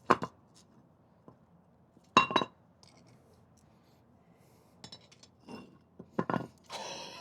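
Sharp metallic clinks and knocks from handling a metal casting mold and tools: two loud ones at the start and about two seconds in, then several lighter ones, with a hissing rush setting in near the end.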